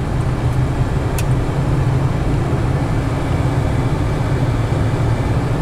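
Steady low road and engine rumble inside the cabin of a 1976 Cadillac Seville cruising at an even speed, with one faint short tick about a second in.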